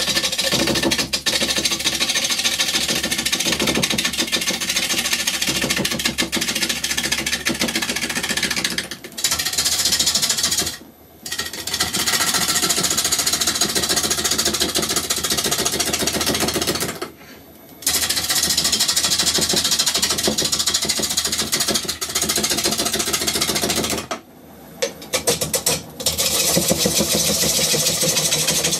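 Wood lathe spinning a half-log honey locust bowl blank while a 16 mm Stubai bowl gouge cuts it: a loud, rapid, rhythmic clatter of the gouge biting into the uneven spinning wood. It stops briefly three times where the cut is broken off.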